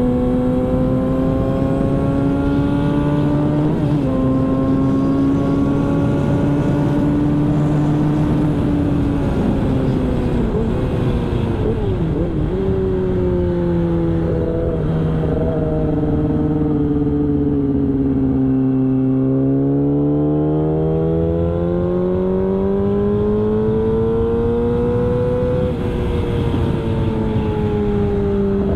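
Yamaha R6 sport bike's inline-four engine at speed on a race track. The engine note climbs and drops sharply at gear changes about four seconds in and near the end, and it falls away twice in between before rising again, all over a steady rush of noise.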